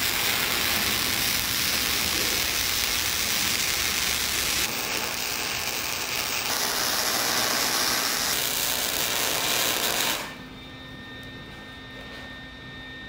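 MIG welder arc crackling steadily as a steel flat-bar corner is welded. The arc cuts off about ten seconds in, leaving a quieter steady hum.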